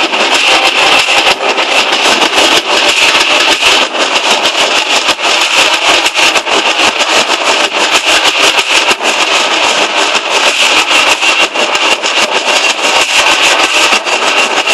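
Nashik dhol troupe drumming in procession: many large barrel drums beaten together in a loud, dense, unbroken stream of fast strokes.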